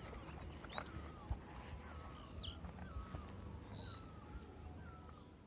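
Wild birds calling in a forest: short, high whistled notes that slide downward, repeated every second or two, over lower wavering calls, with a steady low rumble underneath. The sound fades out near the end.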